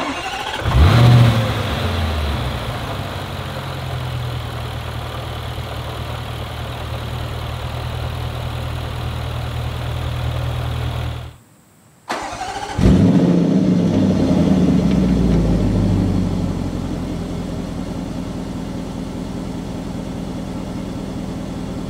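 Land Rover Defender 110's 5.0-litre supercharged V8 starting with a quick flare of revs, then settling into a steady idle. After a brief silence about eleven seconds in, it starts again, heard at the quad tailpipes: another flare of revs that settles back to a steady idle.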